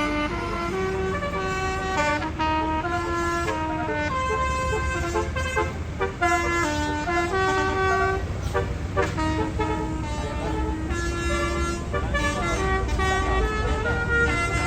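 Tour bus's Basuri telolet musical air horn playing a melody of quick stepped notes without pause, over a low rumble.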